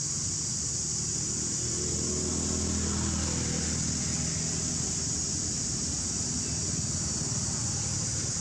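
A steady high-pitched insect drone, with the low hum of a motor vehicle passing in the background that swells about two seconds in and fades after four.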